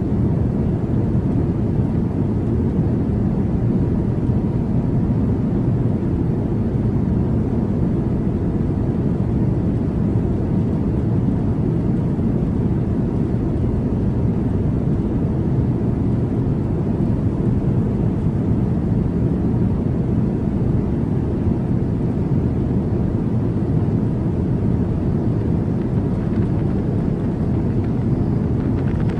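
Steady low rumble of airport ramp noise from running aircraft machinery, even and unbroken throughout.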